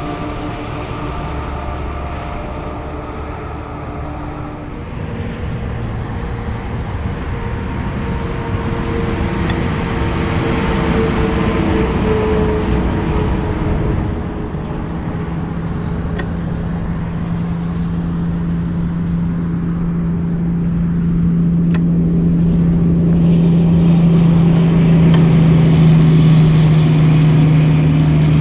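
Highway traffic passing, with tyre and engine noise swelling as vehicles go by. From about halfway, a heavy diesel truck engine drones steadily and grows louder as the truck approaches.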